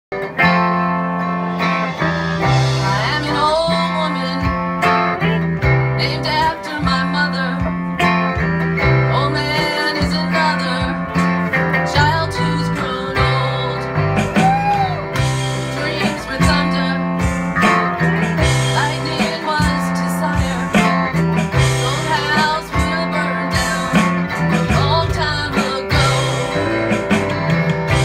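Live band music: a red semi-hollow-body electric guitar and a strummed acoustic guitar playing a bluesy song over a steady rhythmic bass line, with a woman singing.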